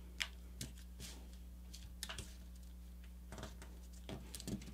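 Faint paper handling: a sheet of paper being folded and pressed into creases by hand on a cutting mat, giving a few soft scattered crackles and clicks over a low steady hum.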